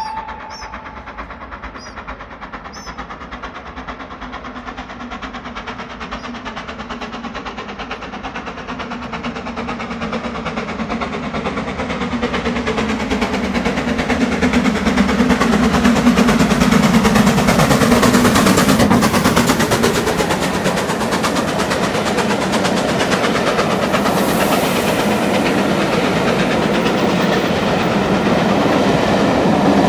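Steam locomotive hauling a train of coaches, approaching and then passing close by. The rumble grows louder over the first fifteen seconds or so, then stays loud as the coaches roll past with wheel noise on the rails.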